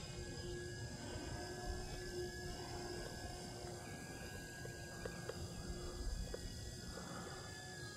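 Faint, steady whine of an FMS Cessna 182 RC model's electric motor and propeller in flight, over a low, uneven rumble.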